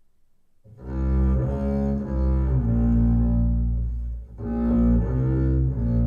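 Instrumental opening of a slow vocal blues song played back through a Pioneer M-22 power amplifier and C-21 preamplifier: deep bowed low strings with sustained notes. The music starts under a second in and briefly dips about four seconds in.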